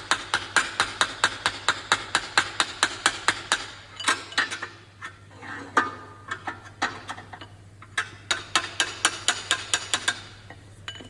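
Hammer tapping a copper drift in quick runs of light, sharp strikes, about five or six a second with short pauses between runs, working the tight rear main bearing cap out of a Ford GPW engine block.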